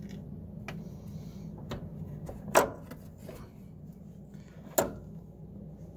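About five sharp clicks and knocks from a hand handling the top of a car's fuel pump assembly through the access hole in the floor, the loudest about two and a half seconds in and another near five seconds, over a steady low hum.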